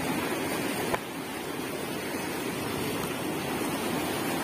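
River water rushing over rocks in shallow rapids, a steady even noise. A single sharp knock about a second in.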